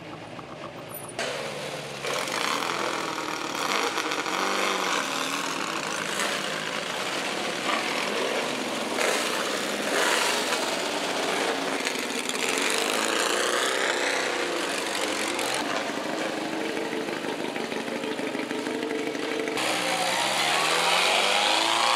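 Engines of historic racing cars, small single-seat formula cars and a vintage open sports car, revving and pulling away at close range, the pitch rising and falling as they go by. The sound changes abruptly about a second in and again near the end.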